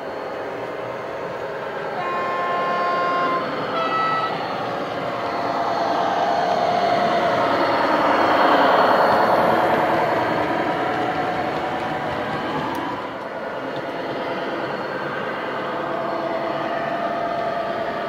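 A Class 29 diesel sound file played by a DCC sound decoder through the speaker of a model Class 22 locomotive. The engine runs under power with turbo whistle. About two seconds in comes a two-tone horn, a longer low note and then a short higher one. The running sound of the model train swells as it passes close, loudest about halfway, then eases.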